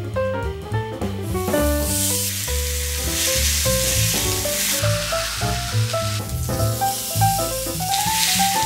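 Steak sizzling on a hot ridged grill pan as it is pressed down with a spatula, starting about a second in, briefly fading in the middle and coming back strongly near the end. Light jazz music with a bass line plays underneath.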